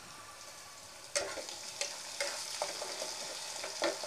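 Sliced onions sizzling in hot oil in a pan, with a spatula stirring and scraping them in several short strokes from about a second in.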